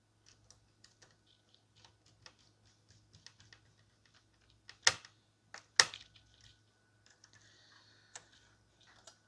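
Small scattered clicks and ticks of screws being driven back into an open laptop's chassis with a small screwdriver, with two sharp louder clacks about five and six seconds in.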